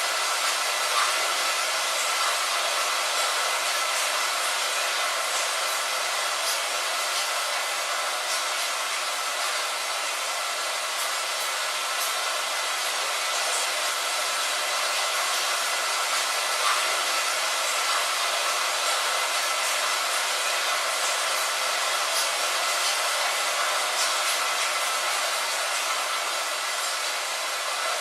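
Rain falling steadily on a window: a constant hiss with scattered light taps of drops.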